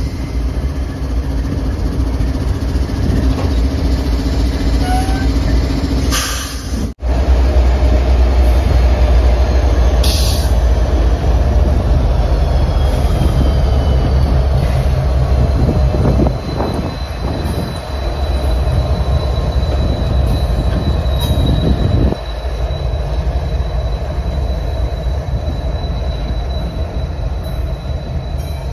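A set of Norfolk Southern diesel-electric locomotives passing at close range and pulling away: a heavy engine drone with the rumble of wheels on rail. From about halfway a thin high steady squeal of wheels on the rail runs over it. The sound cuts out for an instant about seven seconds in.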